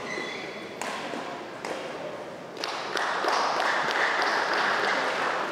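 Badminton rackets striking a shuttlecock during a rally: sharp cracks about once a second. Near the middle a louder swell of crowd noise rises and lasts about two seconds once the point ends.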